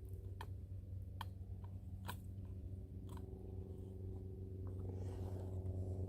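A utensil clicking against a cast cooking pot as a breakfast mixture is stirred over a wood fire: four or five sharp clicks about a second apart, over a steady low hum.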